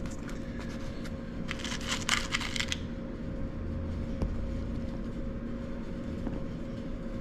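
Small metal star cleats clinking and clicking as they are handled and pushed into a rubber wading-boot sole. There is a quick cluster of light clicks lasting about a second, then a single click a little later, over a low steady hum.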